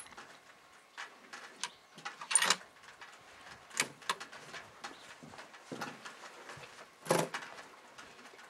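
Scattered faint clicks and knocks over quiet background noise, with two brief, louder rustling knocks about two and a half seconds and seven seconds in. No gunshot is heard.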